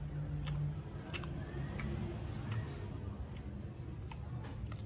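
A person chewing a soft pastry with the mouth closed: scattered wet mouth clicks and smacks over a steady low hum.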